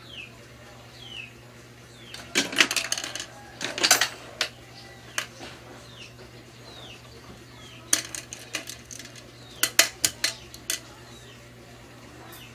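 Rapid small hard clicks and rattles in four short bursts, two in the first half and two in the second, over a faint steady hum; short falling chirps like a small bird's come every second or two in the background.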